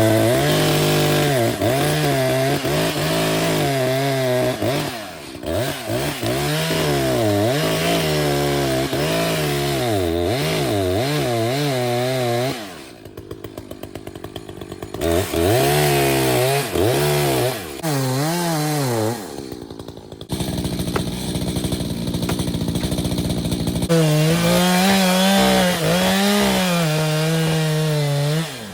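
Two-stroke chainsaw cutting, its engine speed rising and falling over and over under load. It drops back to idle about halfway through and eases off again a little later, then runs at high revs near the end.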